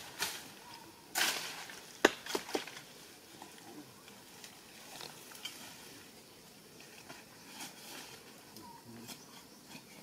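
A rustle about a second in, then a sharp knock just after two seconds with a few lighter knocks close after it, followed by faint rustling of brush and leaves as a person moves through undergrowth.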